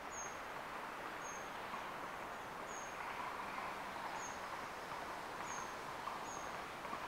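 Outdoor countryside ambience: a steady hiss with a small bird giving short, high, thin calls, six of them, about one every second or so.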